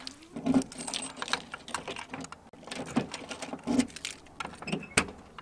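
A rapid, irregular run of small mechanical clicks and knocks, with a few low thumps and one sharp, loud click near the end.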